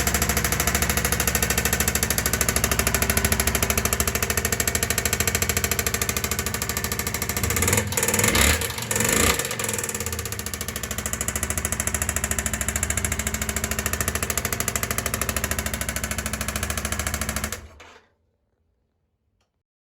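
Yamaha XV 535 Virago's air-cooled V-twin idling with a rapid, even, crackly putter, blipped once about eight seconds in, then switched off near the end, cutting out suddenly.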